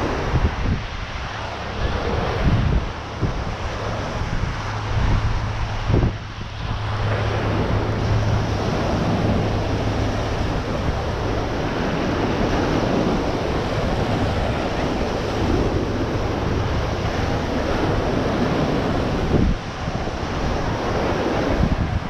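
Ocean surf washing onto the beach, with wind gusting against the microphone. A low steady hum runs through the middle for several seconds.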